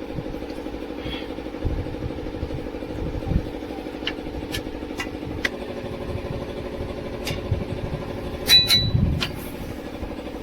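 An engine idling steadily nearby, its pitch shifting slightly about halfway through, with sharp metallic clinks of hand tools on the truck's bolts; the loudest clink, near the end, rings briefly.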